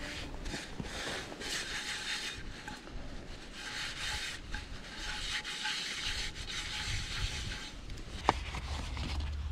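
A utensil scraping and stirring in a pan of scrambled eggs, in irregular rubbing strokes, with one sharp click near the end.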